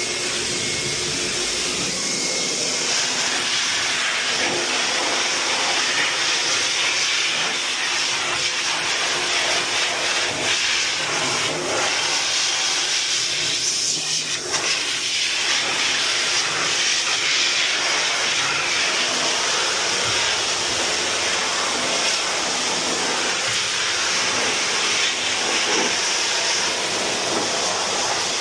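Dog grooming dryer blowing air, a steady loud hiss.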